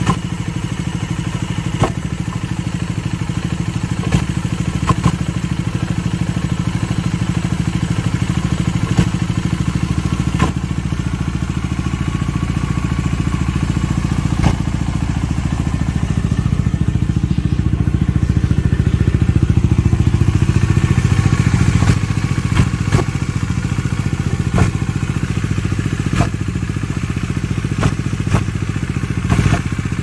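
Bajaj Dominar 400 single-cylinder engine idling with an abnormal knocking from the engine: sharp knocks at uneven intervals of a second or two over the running note, a little louder for a few seconds past the middle. The noise carries on with the clutch lever pulled in, and the riders wonder whether the clutch discs are the cause.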